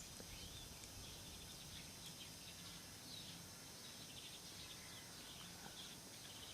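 Faint, scattered chirping of tree sparrows over a quiet outdoor background.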